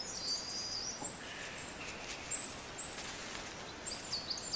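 Small songbirds singing in the background: high thin whistles and quick falling chirps repeated every second or so, over a faint outdoor hiss.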